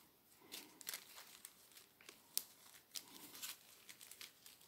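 Small clear plastic packets of embroidery gems crinkling faintly as they are handled, with scattered light ticks and one sharp click about two and a half seconds in.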